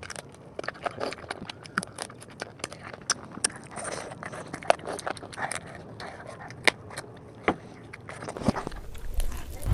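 Close-miked chewing and mouth smacking while eating noodles: a quick, irregular string of sharp, wet clicks. A low rumble rises near the end.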